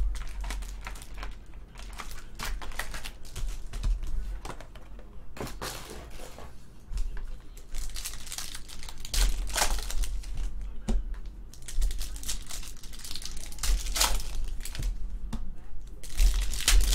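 Foil trading-card pack wrapper crinkling and rustling in the hands as packs are lifted from the box and torn open, in irregular crackly bursts with a bump of handling at the start.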